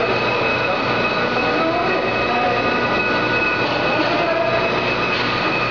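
Steady running noise of bread-plant machinery: a constant hum with several high, steady whining tones over it.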